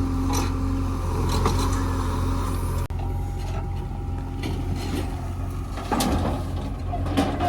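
A heavy diesel engine running at a steady speed, with scattered short knocks and clanks, the loudest about six seconds in.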